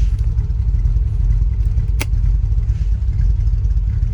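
Chrysler V8 of a 1973 Jensen Interceptor idling with a steady low rumble, heard from inside the cabin, with a single sharp click about two seconds in as a dashboard switch is pressed.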